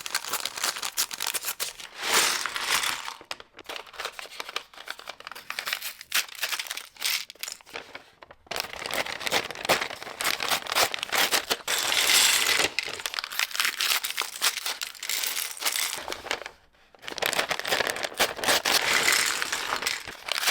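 LEGO piece bags being torn open and crinkled, in several spells of rustling and crackling separated by short pauses.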